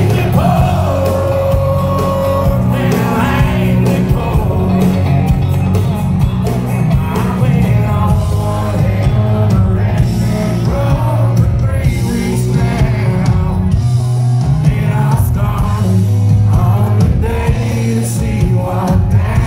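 Live country band performing a song, the lead singer singing over acoustic guitar and electric bass, loud as heard from within the crowd.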